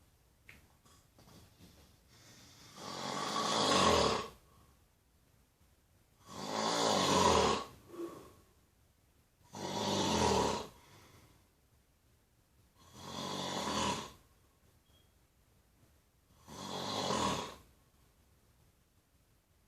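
Snoring in slow, regular breaths: five loud snores about every three and a half seconds, each lasting about a second, with quiet between them.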